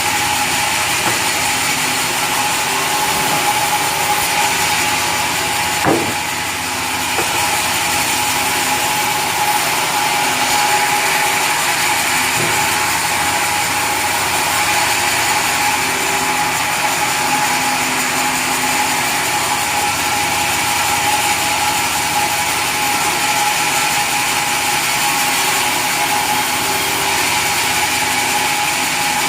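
Sawmill saw and its engine running steadily with a constant whine, and a single knock about six seconds in.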